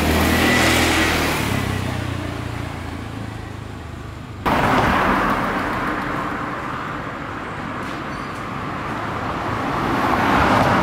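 Road traffic: vehicles passing, engine and tyre noise swelling and fading away. The sound jumps abruptly louder about four and a half seconds in, and another vehicle swells up near the end.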